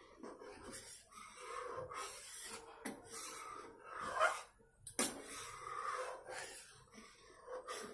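Metal spatula stirring and scraping thickening milk in a steel kadhai, in a string of short strokes with a sharp click about five seconds in. A few brief whine-like sounds come through in the background.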